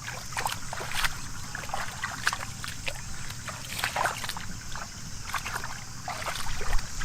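Shallow field water splashing and sloshing in irregular bursts as someone wades and gropes for fish by hand.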